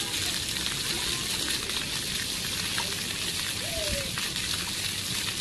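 Splash-pad floor fountain jets spraying up and falling back onto wet pavement, a steady even hiss of splashing water.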